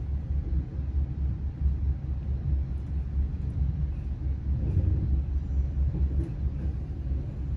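Low, steady rumble of a train on the move, with a few faint clicks in the middle.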